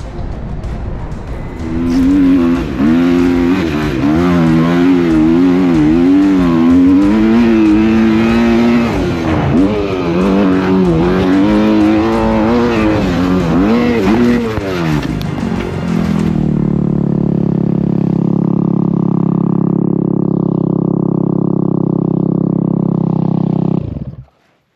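Dirt bike engine revving up and down over and over as it is ridden on a dirt track. Then it holds one steady, unchanging pitch for about eight seconds and cuts off abruptly near the end.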